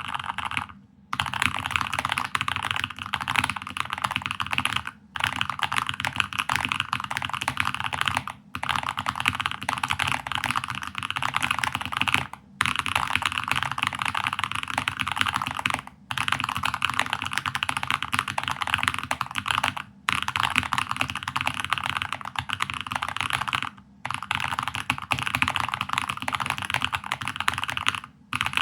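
Very fast typing on a Keychron K8 Max mechanical keyboard with Invokeys Hojicha Reserve tactile switches: a dense, unbroken clatter of keystrokes, stopping for a brief pause about every four seconds.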